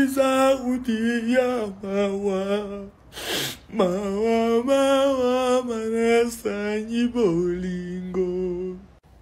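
A man wailing in exaggerated, drawn-out crying, holding long sung-like notes whose pitch wavers and slides. About three seconds in there is a short, sharp noisy breath, then the wailing resumes and drops lower near the end.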